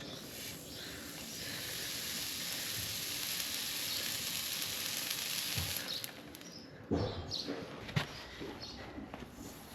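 Hot horseshoe sizzling steadily as it is pressed against the hoof wall during hot fitting, stopping about 6 s in, followed by a couple of sharp knocks.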